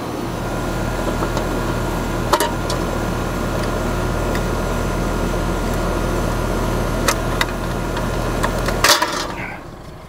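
American Standard Heritage 13 heat pump outdoor unit running with a steady low hum, a few sharp clicks from the metal disconnect box cover being opened, then the unit cuts off suddenly near the end as the disconnect is pulled to kill the power.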